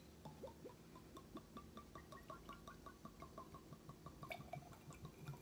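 Whiskey glugging out of a bottle's neck into a glass of ice: a quick, faint run of gurgles, about five a second, slowly rising in pitch as the glass fills. A light click comes about four seconds in.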